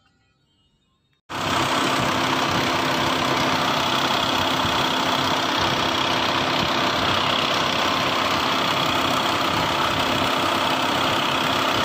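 Volkswagen Passat 2.0 diesel engine idling steadily, heard close at the engine bay with the accessory belt and pulleys turning, after its timing belt, water pump, V-belt and tensioner have been replaced. The sound begins abruptly about a second in, after near silence.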